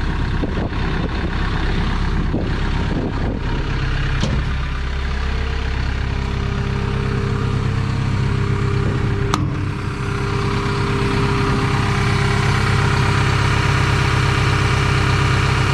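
Hyundai HX160L excavator's diesel engine idling steadily, with a few light clicks in the first few seconds and one sharp click about nine seconds in.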